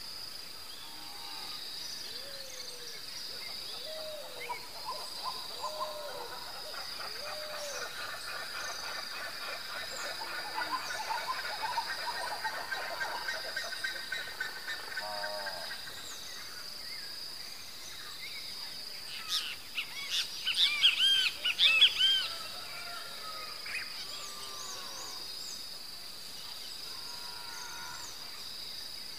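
Night outdoor ambience: a steady high insect chorus with scattered short chirping calls and trills over it, and a louder flurry of chirping calls about twenty seconds in.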